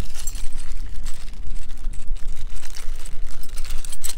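Steady low rumble of wind buffeting the microphone, with scattered light clicks and rustling as small plastic spacers are handled out of a plastic parts bag.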